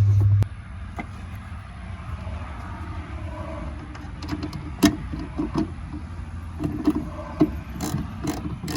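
Tail light mounting nuts being tightened by hand with a ratchet wrench: a steady low hum cuts off about half a second in, then a low rumble with scattered clicks, ending in a run of sharp clicks about three a second.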